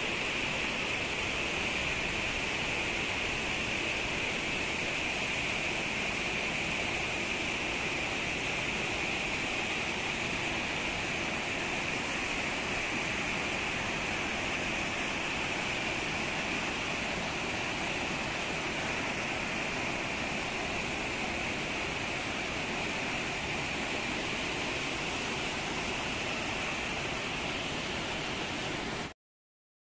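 Stream water rushing steadily over boulders and small cascades, cutting off suddenly near the end.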